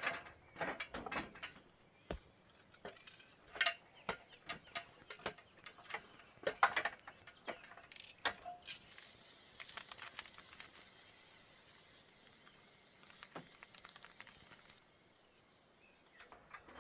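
Faint, irregular clicks and light taps, scattered and uneven. From about nine seconds in a faint steady hiss joins them, and it cuts off suddenly a couple of seconds before the end.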